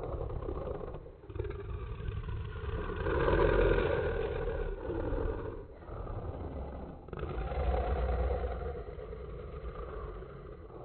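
Monster sound effect: a run of low, rumbling growls in several phrases, separated by brief breaks.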